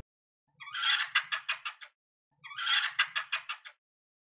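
A chattering, animal-like call made of quick pulses that slow toward the end. It is heard twice, the same way both times, with a short gap between.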